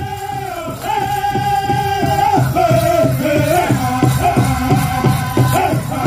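Powwow drum group singing a chicken dance song: several voices carrying a high, held melody over a steady beat on a large drum.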